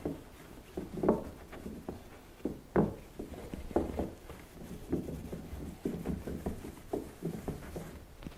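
Cloth rubbing clear wax onto a marble tray, with irregular soft knocks as the tray is handled, about one or two a second.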